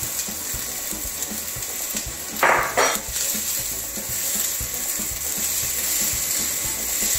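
Chopped onions sizzling in hot oil in a stainless steel pot as they are stirred with a silicone spatula: a steady frying hiss. About two and a half seconds in, two short louder scrapes or knocks of the spatula against the pot stand out over the sizzle.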